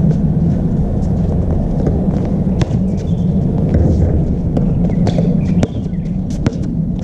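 Basketball knocks sounding now and then as the ball bounces on an outdoor court, heard as sharp, separate impacts over a steady low rumble.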